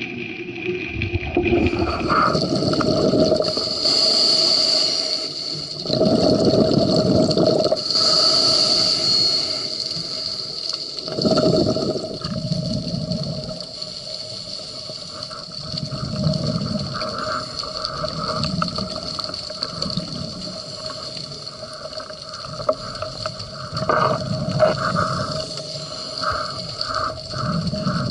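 Scuba breathing heard underwater: bursts of exhaled bubbles from a regulator every few seconds, between quieter inhales, with a steady faint tone underneath.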